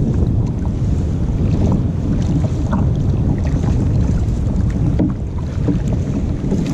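Wind rumbling steadily on the microphone, with small splashes and drips from a kayak paddle dipping into the water on each stroke.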